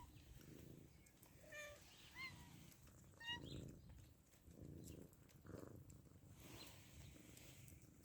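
Domestic cat purring faintly in slow pulses that rise and fall with its breathing, with a few short high chirps in the first half.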